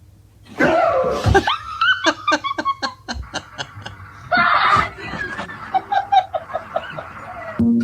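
Hearty laughter: a loud outburst about half a second in, breaking into rapid ha-ha pulses, then a second outburst about halfway through that trails off into more pulses.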